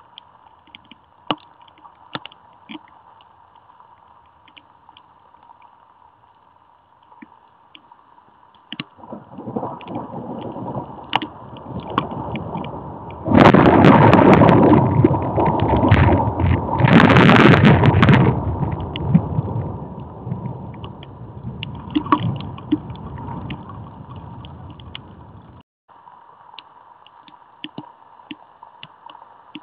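Thunder during an electrical storm: a low rumble builds about nine seconds in, is loud for about five seconds, then rolls away and fades. Scattered ticks, like raindrops striking the camera, and a faint steady hum sit underneath.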